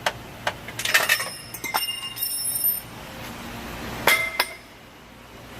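Metal clinking, with short ringing tones: a cluster of clinks about a second in, ringing for a moment, then two sharp clinks about four seconds in.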